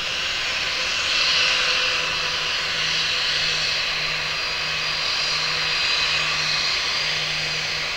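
Airbus A320-232's IAE V2500 turbofan engines running steadily at taxi power as the airliner taxis, a high even whine over a low hum.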